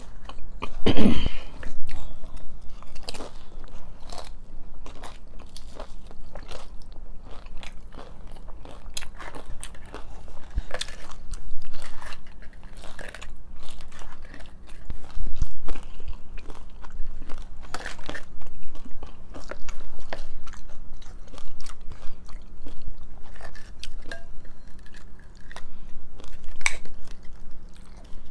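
Close-up crunching and chewing of crisp fried taco shells being bitten into and eaten, an irregular run of sharp crunches, loudest about a second in.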